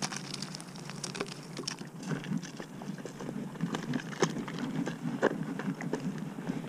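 Scattered, irregular light clicks and ticks over a steady low rumble: handling noise from a fishing rod and reel being worked slowly.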